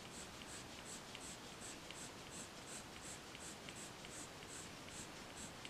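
Prismacolor colored pencil scratching on paper in quick, short flicking strokes, about three a second, laying colour into hair. Faint.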